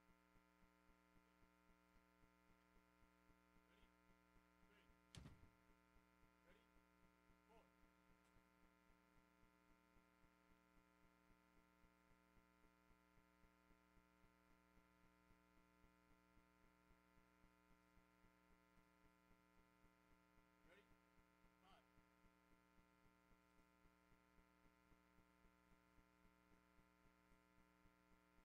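Near silence: a steady electrical mains hum with a faint, regular ticking pulse underneath, and one sharp click about five seconds in.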